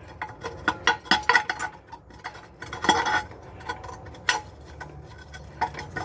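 Spare-tire hoist cable and its anchor plate clinking and clanking irregularly against the wheel as the anchor is fed down through the centre hole at an angle.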